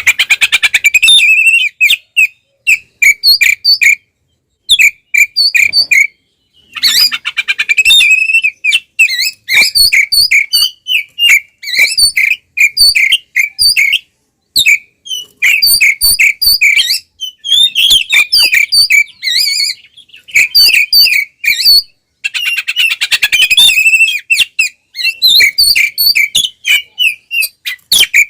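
Oriental magpie-robin singing loudly in full, combative song: phrases of rapid repeated whistled notes and slurs, with a few harsh buzzy stretches, broken by short pauses. It is the aggressive fighting song that keepers play to provoke other male magpie-robins.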